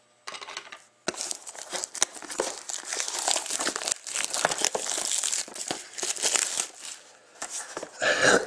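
Clear plastic shrink wrap crinkling and crackling as it is torn and peeled off a sealed trading-card box, starting about a second in.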